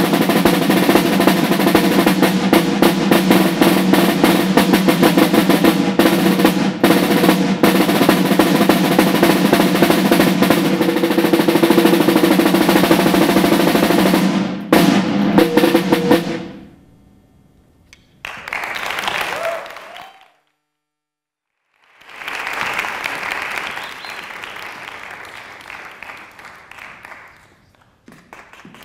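Snare drum played with sticks in a rudimental solo: dense rolls and rapid strokes that stop abruptly a little over halfway through, after a few last accented strokes. Audience applause follows.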